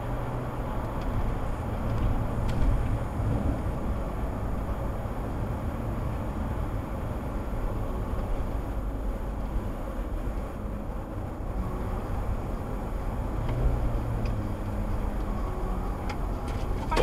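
Steady road and tyre rumble with a low engine hum inside a moving car's cabin, picked up by a dashcam microphone; the engine note swells briefly near the end.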